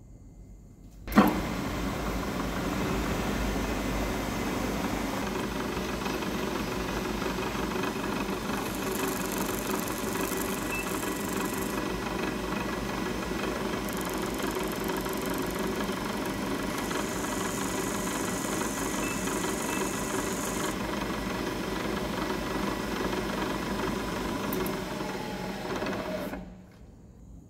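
Hafco BM-63VE milling machine spindle switched on with a clunk about a second in, running steadily, and shut off about a second before the end. A higher hiss comes and goes twice in the middle.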